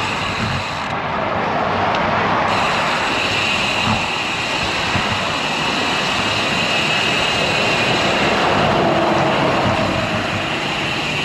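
Highway traffic rushing past a moving bicycle, with wind noise on the microphone. It is a steady rush, swelling slightly as vehicles go by.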